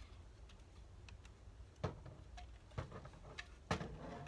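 Three sharp plastic clicks about a second apart from a jammed Nerf shotgun's cocking and trigger mechanism being worked.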